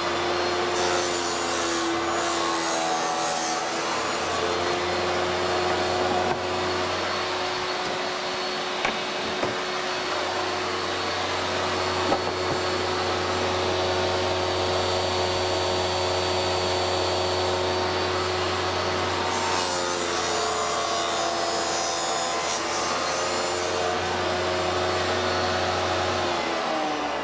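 Table saw running at speed while a crosscut sled feeds plywood through the blade. The steady motor hum is joined twice by a harsher cutting hiss as the blade goes through the board. Near the end the motor is switched off and winds down, its pitch falling.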